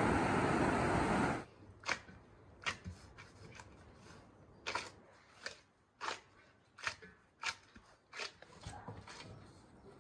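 Steady surf and wind noise that cuts off abruptly about a second and a half in. After it come irregular soft slaps and squelches, one or two a second, of a large ball of bread dough being kneaded by gloved hands in an enamel basin.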